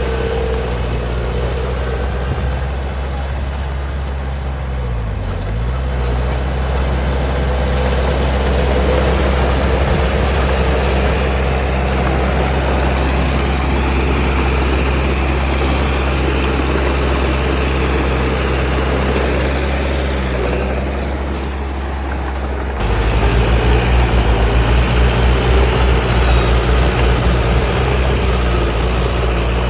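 Heavy diesel engine of a bulldozer running steadily. Its pitch dips briefly twice, and about three quarters of the way through it suddenly gets louder and rougher, with a pulsing beat.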